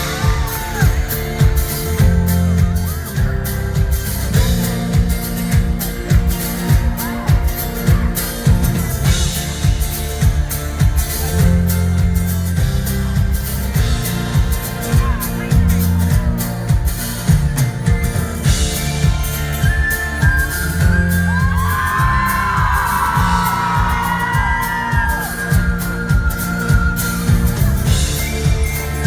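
Live pop band playing an instrumental intro with a heavy, steady bass beat, heard loud through a fan's recording in the hall. The crowd whoops and screams over it, most strongly in the middle.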